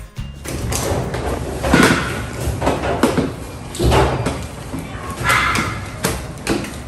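A plastic pet carrier being handled on the exam table, clattering with several knocks.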